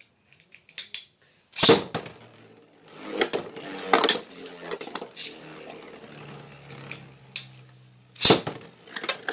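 Beyblade Burst spinning tops launched into a plastic stadium. There are sharp clacks about two seconds in, again around four seconds and near the end, with rattling clatter between them and a steady low whir while a top spins.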